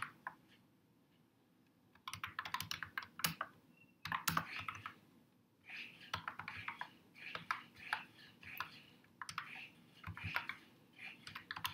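Typing on a computer keyboard: quick runs of key clicks, after a pause of about two seconds at the start.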